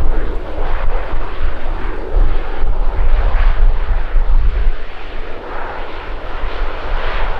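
De Havilland Canada Dash 8-400 turboprop airliner's engines running as it arrives, a steady, wavering noise over a strong low rumble.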